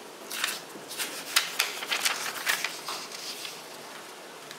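A sheet of paper handled and slid round on a tabletop: a run of short scrapes and taps for about three seconds, then only a faint steady hiss.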